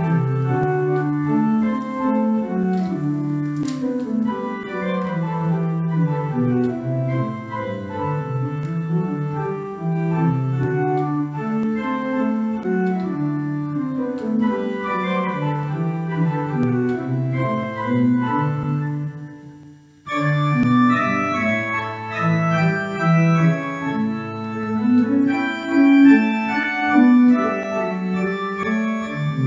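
Organ music, chords moving at an unhurried pace. About twenty seconds in it breaks off for a moment, then resumes fuller, with more high notes.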